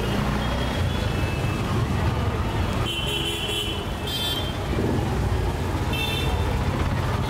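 Street traffic: a steady engine rumble with short, high vehicle-horn toots three times, about three seconds in, a second later and near the end.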